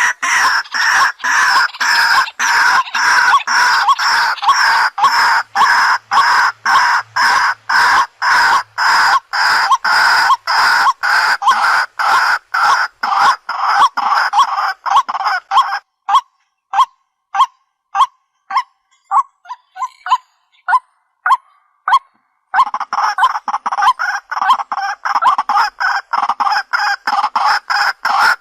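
White-breasted waterhen calling: a loud, fast run of short repeated calls, about two to three a second. About halfway through it breaks into sparse, separate short notes for several seconds, then the rapid calling picks up again.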